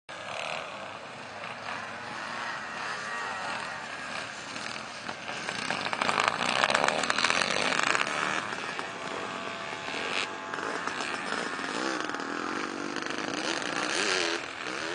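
A pack of vintage motocross bikes racing on a dirt track, their engines revving and rising and falling in pitch through the gears. The sound is loudest a little past halfway as the bikes come closest.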